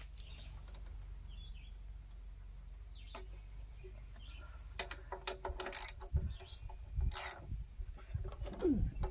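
Ratchet wrench clicking as the spark plug is loosened from a Weed Eater mower engine, with sharp metallic clicks and knocks from about five seconds in.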